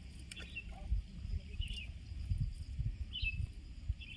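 A bird giving short high chirps, four in a few seconds, over a low, uneven rumble.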